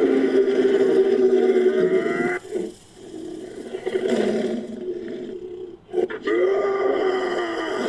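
Monster roar sound effect layered from a human voice and film creature roars: a long pitched roar that breaks off about two and a half seconds in, a lower, quieter growl, then another roar starting about six seconds in.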